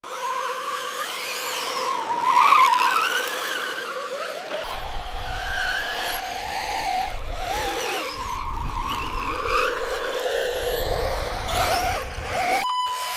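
Whining motors of radio-controlled model construction vehicles, their pitch sliding up and down as they speed up and slow down. A low rumble joins about four and a half seconds in, and the sound breaks off briefly near the end.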